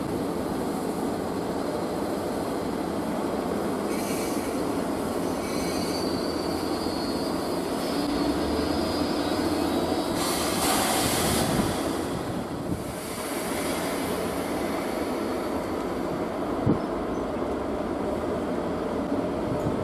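EF66 electric locomotive hauling a container freight train slowly past, its wheels rumbling on the rails. A high-pitched wheel squeal sounds between about four and eight seconds in, and a brief louder rush of noise comes about halfway through.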